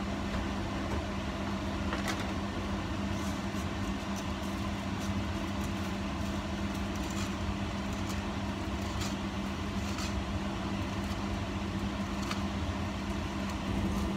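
Stainless-steel pot of water boiling on an electric hob: a steady rush with a constant low hum, and a few faint ticks as dry spaghetti is pushed down into the pot.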